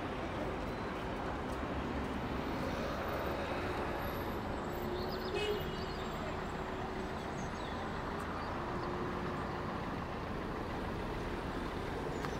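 Steady outdoor town ambience: a continuous rush of traffic-like noise along a harbour-side road, with one brief high-pitched sound about five and a half seconds in.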